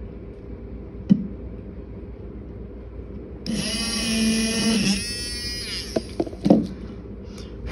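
Small handheld electric drill whining as it bores a hole through a small resin butterfly charm. It starts about three and a half seconds in, runs for about a second and a half, then spins down with falling pitch. A couple of light knocks come before and after.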